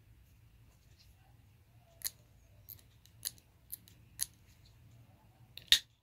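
Benchmade Auto Stryker automatic knife: four or five light clicks from the knife in the hand, then the spring-driven blade fires open and locks with one sharp, loud snap near the end.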